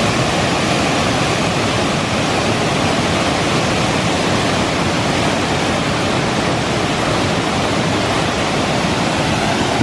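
Bond Falls, a wide waterfall spilling over stepped rock ledges into a shallow rocky river, heard close by as a steady, even rush of falling water.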